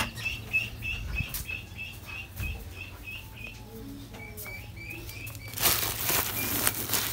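A bird chirping over and over, about three short high chirps a second, with scattered clicks and knocks. About five and a half seconds in, loud rustling of a woven plastic sack as a hand rummages inside it for paddy grain.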